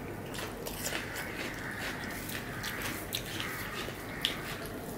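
Eating with the hands: fingers mixing rice and curry on the plates, and chewing, heard as many small clicks, with one sharper click about four seconds in.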